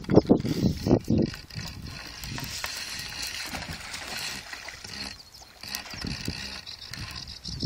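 Fishing reel clicking steadily as a pike hooked on live bait is reeled in, with a few louder knocks in the first second or so.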